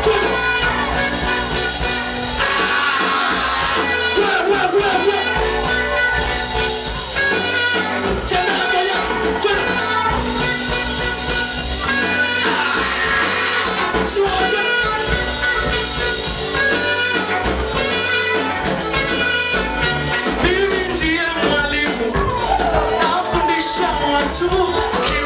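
Praise-and-worship music: a group of singers over a band with a steady bass line, playing continuously.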